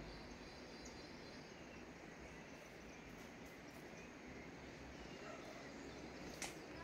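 Faint outdoor ambience with a few faint, distant bird chirps, and a single sharp click near the end.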